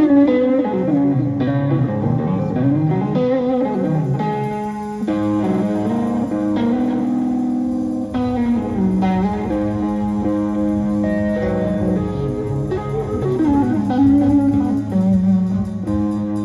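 Live rock band playing: an electric guitar plays held notes with bends and slides over a steady electric bass line.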